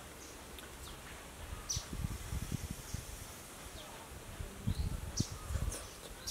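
A person eating a spoonful of soft taro and coconut-milk dessert: two clusters of close, soft mouth and chewing sounds, about two seconds in and again near five seconds. A few short high chirps sound at the same time.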